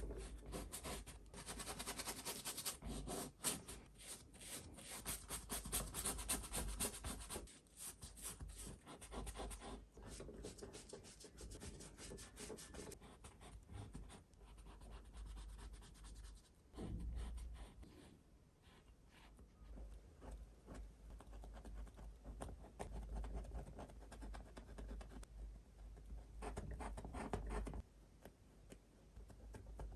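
Paintbrush strokes of water-mixable oil paint on the painting surface: quick, scratchy brushing and dabbing, busiest and loudest in the first several seconds, then softer with short louder spells later on.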